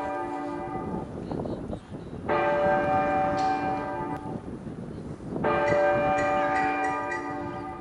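Bell-like chime struck twice, about three seconds apart, each strike ringing on with several steady tones for a couple of seconds before fading.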